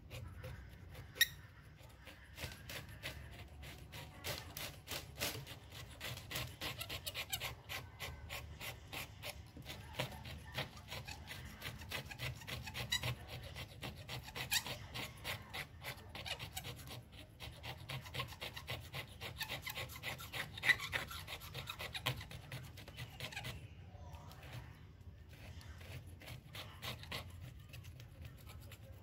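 Razor-blade scraper rasping across an LCD panel's glass in quick back-and-forth strokes, scraping off old polarizer glue residue. The strokes let up briefly about three-quarters of the way through, then carry on more lightly.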